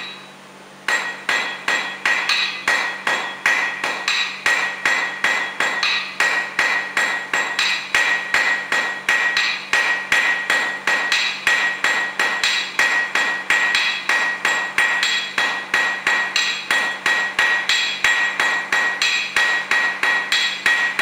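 Blacksmith's hammer striking a hot steel nail rod on an anvil in a rapid, steady rhythm of about three blows a second, each blow with a bright metallic ring. The hammering starts about a second in.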